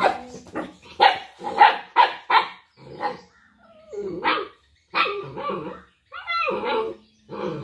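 Small dog barking at a cat: a quick run of short, sharp barks in the first three seconds, then longer, wavering growls.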